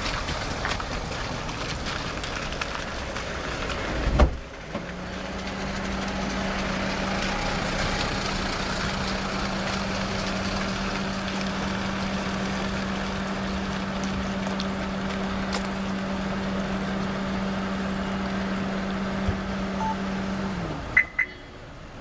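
Vehicle passing slowly at close range over steady outdoor traffic noise. A sharp thump comes about four seconds in, then a steady low hum holds until near the end, followed by two short clicks.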